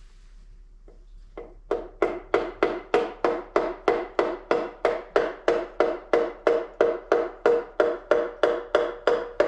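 Wooden hammer handle tapping a piston down through a ring compressor into the bore of an LS 5.3 V8 block. It is a steady series of light taps, about three a second, starting a second or so in. Each tap gives a short metallic ring from the compressor sleeve.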